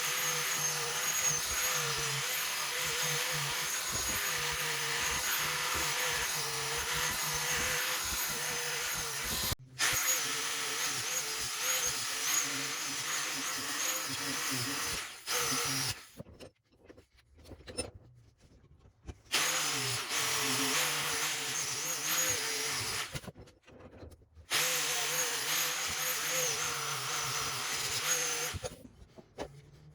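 Electric drill motor running steadily under load, its whine wavering in pitch, in several stretches that stop and start again, falling quiet near the end.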